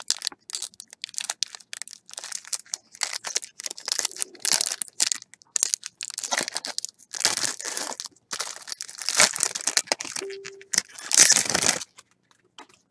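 Foil trading-card pack wrappers being torn open and crumpled by hand: irregular crinkling and crackling in clusters, stopping about a second before the end.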